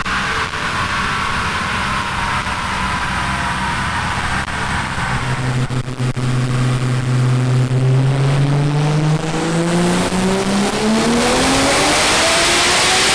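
Big-turbo 2JZ-GTE inline-six in a Nissan Cefiro making a pull on a chassis dyno: after a few seconds of steadier running, the engine note climbs steadily in pitch from about five seconds in as the revs rise, getting louder and harsher near the end.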